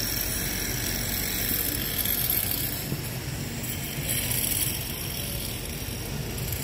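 Steady outdoor city ambience: a constant low hum of distant traffic, with no single clear event standing out.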